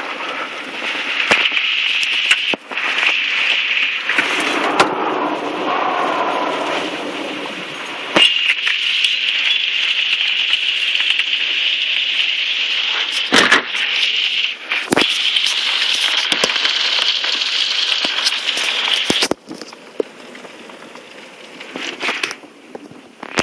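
Heavy storm rain and wind making a steady loud hiss, with scattered sharp knocks and crackles; the noise drops off suddenly near the end.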